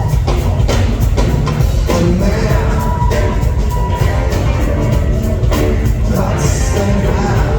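Live rock band playing through a loud PA, with a heavy bass and drum groove and pitched instrument lines over it.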